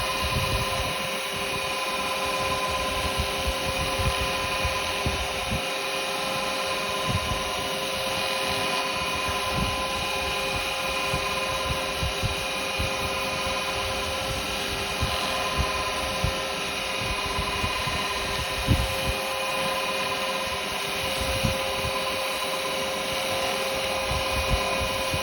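Wood lathe running at steady speed, its motor giving a constant whine, while a homemade beeswax and carnauba wax finish is applied to the spinning yew workpiece, with irregular low rubbing and light knocks.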